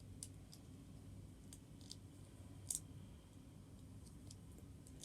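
Plastic LEGO pieces clicking as they are handled and pressed together: a handful of light, scattered clicks, one louder than the rest a little past halfway.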